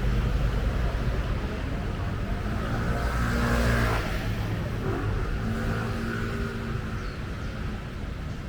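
Street traffic: a motor vehicle passes close by about three to four seconds in, its engine note rising and falling, over a steady low rumble of traffic.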